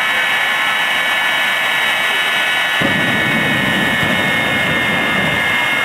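Jet dragsters' Westinghouse J34 turbojet engines running with a steady high whine. About three seconds in, the afterburners light and a deep rumble suddenly joins the whine.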